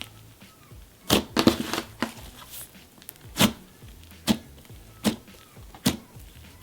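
Pink butter slime made with Daiso clay being squished and poked by hand, giving a series of sharp clicks and pops, about one a second, as air pockets in the soft, airy slime burst.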